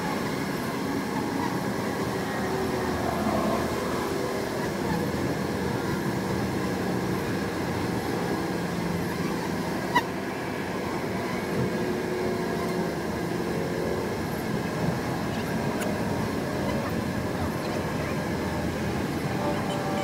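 Honey bee swarm buzzing steadily close by, a dense drone of many overlapping wavering tones, as the shaken swarm walks into the hive box. A single sharp click about ten seconds in.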